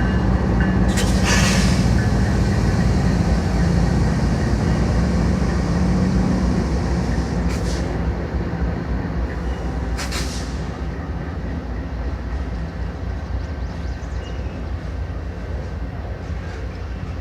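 CN freight train's diesel locomotives passing with a heavy low rumble, the horn's last note cutting off just at the start. Three short, sharp noises come through, about a second in, halfway, and ten seconds in, and the rumble fades gradually over the second half as the train moves away.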